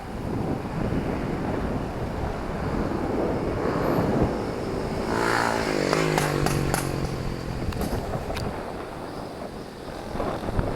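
A motor vehicle passes on the street, its engine tone falling in pitch as it goes by, over steady traffic noise. A few sharp clicks follow it.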